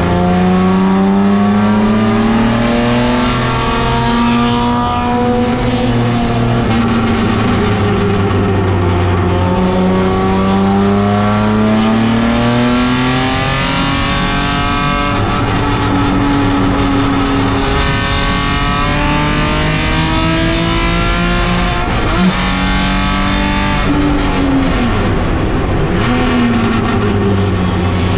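Race car engine heard from inside the caged cockpit on track, its revs repeatedly climbing and falling through gear changes and braking. A sharp short knock comes about three-quarters of the way through, followed by a quick drop and rise in revs.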